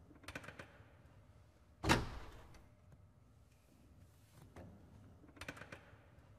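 A loud thump about two seconds in that rings out with a long echo, between two small clusters of sharp clicks.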